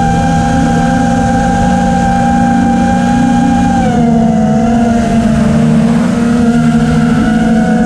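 FPV quadcopter's electric motors and propellers giving a loud, steady whine over a rumble of wind. The pitch drops slightly about four seconds in.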